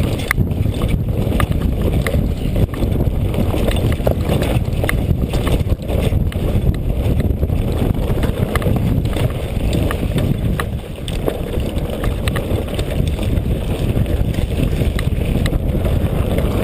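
Wind buffeting the camera microphone while riding a Specialized Turbo Kenevo electric mountain bike downhill, with scattered short clicks and rattles from the bike over rough ground.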